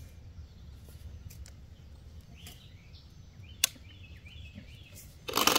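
Barnett crossbow being fired at a foam block target: a single sharp click past the middle, then near the end a loud two-part burst of the shot and the bolt striking the target.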